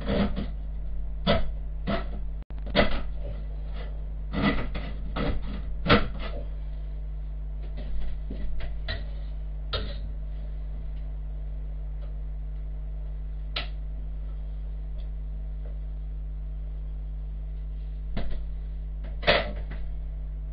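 Tin being opened with a manual can opener: a run of sharp clicks and knocks through the first six seconds or so. Scattered knocks of utensils against a pot follow, with a steady low hum underneath.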